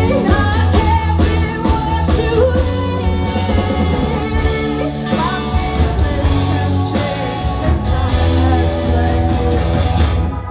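Live rock band playing with a woman singing lead over electric guitar and drums; the band stops together at the very end.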